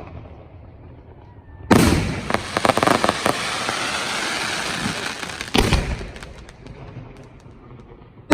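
Professional aerial fireworks shells bursting. A loud boom comes nearly two seconds in, followed by a few seconds of rapid crackling pops and hiss. A second boom comes past the middle with fading crackles after it, and another boom comes at the very end.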